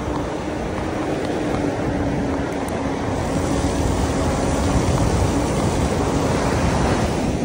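Wind noise on the microphone of a fat-tire electric bike being ridden at speed, with a faint steady hum running through it. The noise grows gradually louder.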